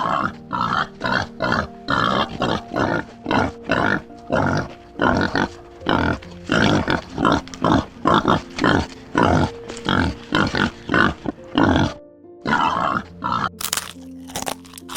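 An animal making short, rapid, repeated calls, about two a second, over background music; the calls stop about twelve seconds in and sharp clicks follow near the end.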